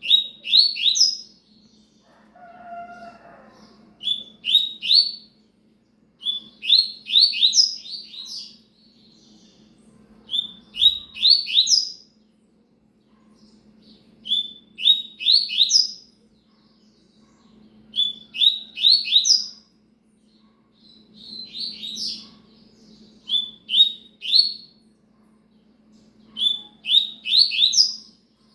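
Double-collared seedeater (coleiro) singing its 'cigano' song, with short, fast, high-pitched phrases of a few rapid notes that rise at the end, repeated about nine times every two to four seconds. A steady low hum runs underneath.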